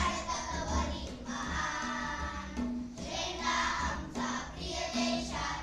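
A group of children singing together, accompanied by tabla keeping a steady beat of short, tuned drum strokes over low bass thumps.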